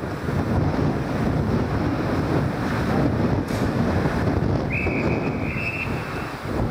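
Wind buffeting the microphone, a steady low rumble throughout. A little past the middle, a whistle is blown once for about a second and a half.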